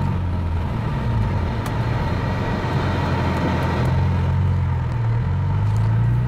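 BMW M3's engine running at low revs as the car rolls up to a stop sign. Its note rises near the end as the car pulls away and turns onto the road.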